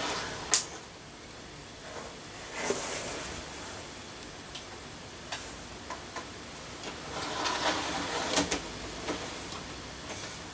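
Model railway locomotive being tried on the track: light clicks and taps from handling it, with two brief spells of its small electric motor whirring and stuttering, a few seconds in and again past the middle. It barely gets going, a sign of poor electrical contact that the owner hears as sparking.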